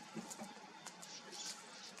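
Quiet bush ambience with a few light clicks and a short, high bird chirp about a second in.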